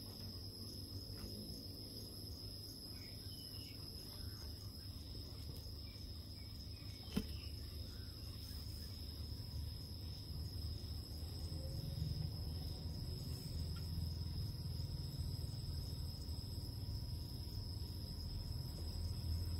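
Steady high-pitched insect trilling, like crickets, with a low rumble that grows louder about halfway through and a single sharp click about seven seconds in.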